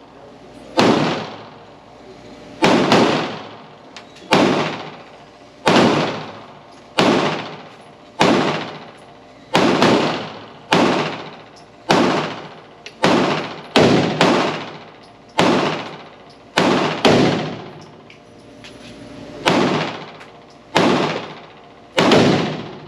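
PSA Dagger Compact 9mm pistol fired at a slow, steady pace: about seventeen single shots, roughly one every second or so and a little quicker in the middle. Each shot rings out in a long echo before the next.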